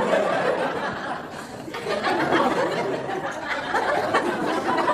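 Comedy club audience laughing steadily, easing slightly about a second and a half in and then picking up again.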